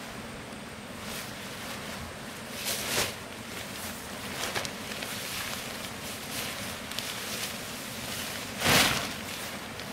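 A large tarp rustling and swishing as it is unfolded and shaken out, with two louder swishes, one about three seconds in and the loudest near the end, over the steady rush of a flowing river.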